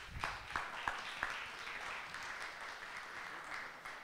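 Audience applauding, with a few louder, sharper single claps close to the microphone in the first second or so.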